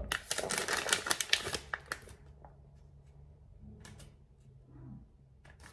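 Plastic breast-milk storage bag being handled and pulled open, crinkling and clicking densely for about two seconds, then a few scattered clicks.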